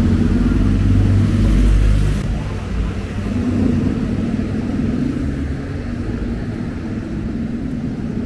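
City street traffic: a motor vehicle's engine rumbles close by and eases off sharply about two seconds in, leaving steadier traffic noise.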